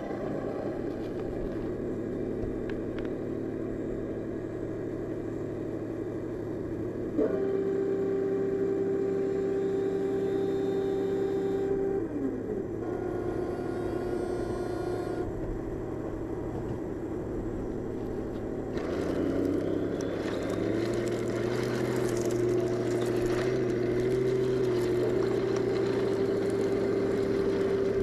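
Heng Long M41A3 Bulldog 1/16-scale RC tank driving, with a steady electric whine. The whine jumps up in pitch and loudness about seven seconds in and slides down around twelve seconds. From about nineteen seconds a louder, rougher noise joins it.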